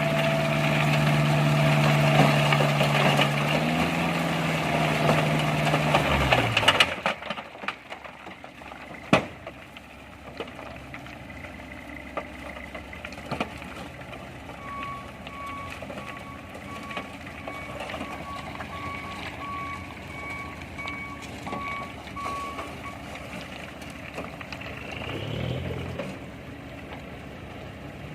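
Heavy diesel work vehicle's engine running hard, its pitch rising briefly and then dropping away about six seconds in. Later, over quieter engine noise, a backup alarm beeps steadily for about eight seconds.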